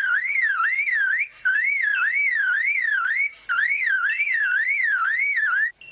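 A male superb lyrebird mimicking a car alarm: a whistled tone warbling up and down about three times a second, in three runs with short breaks between them.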